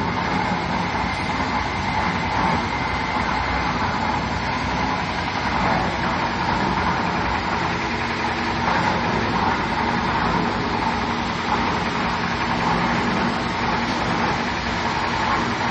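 Concrete mixer machine running steadily, an even mechanical drone with a constant hum.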